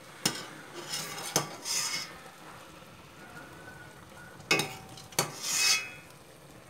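A spatula stirring boiled tapioca pearls in a stainless steel mesh strainer over a pot: four sharp knocks against the metal, two of them followed by a short scraping rasp on the mesh.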